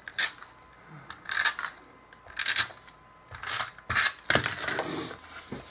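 A crumpled sheet of paper crinkling and rustling as hands press and handle it, in about five short bursts.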